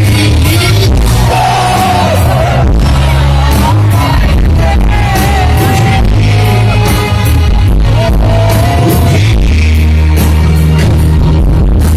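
Live rock band playing a song with singing, as heard from the crowd of a stadium concert. The sound is loud, and the bass is heavy and boomy enough to swamp the rest.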